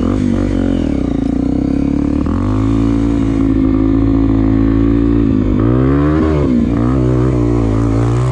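Dirt bike engine revving hard under load on a climb up a steep dirt bank. The revs climb about two seconds in, then waver and sag around six seconds before picking up again. The rider says the bike lacks power and starts misfiring on the climb.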